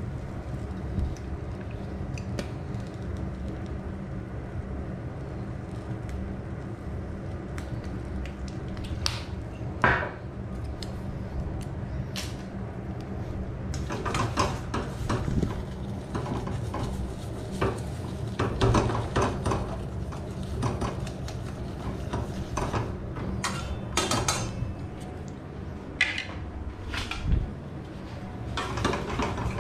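Wooden chopsticks clicking and scraping against a small wok as eggs and onion are stirred, with a sharp knock about a third of the way in and busier stirring through the second half. A steady low hum runs underneath.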